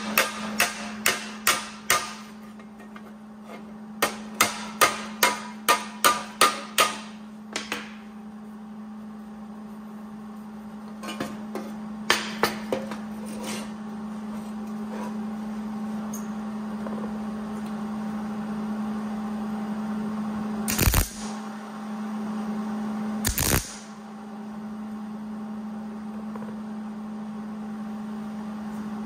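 A small hammer tapping the rusted sheet steel of a 1960 Chevy wagon headlight bucket: quick runs of light metal strikes, about three a second, come in several bursts over the first half. Later come two short, harsh, louder bursts, and a steady low hum sits underneath.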